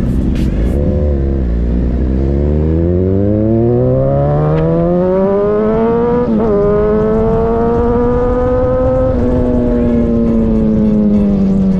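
Motorcycle engine accelerating hard, its pitch climbing steadily for about six seconds, a quick gear change, then climbing again before easing off as the bike slows. Wind rushes over the microphone throughout.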